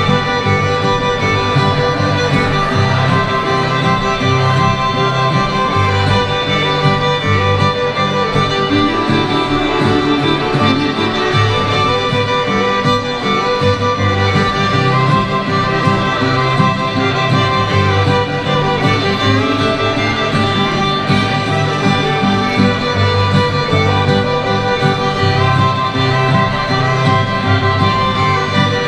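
Three fiddles playing a Cajun two-step tune together, backed by two acoustic guitars keeping a steady beat.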